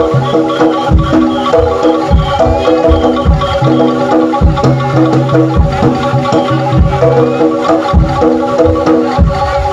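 Jaranan gamelan music playing loudly: struck metal-bar instruments repeat a quick melodic pattern over steady drum strokes and low held notes.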